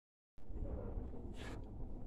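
Quiet room tone with a low hum, and a brief soft hiss about one and a half seconds in.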